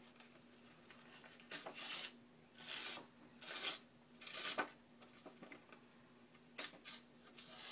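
Hemp thread being drawn through the punched stitching holes of a paper page and mesh tape as the page is handled: a handful of short raspy rubbing strokes, with a pause about five to six and a half seconds in.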